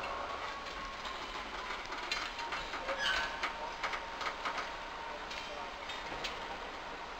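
Freight train of open wagons rolling slowly during shunting, with irregular clicks and clanks of wheels and couplings that come thickest about two to five seconds in, over a faint steady whine.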